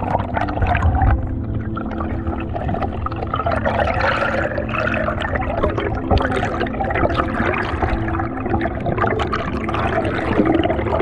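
Air bubbles rushing and gurgling past a camera underwater as it rises toward the surface, with a steady low hum underneath.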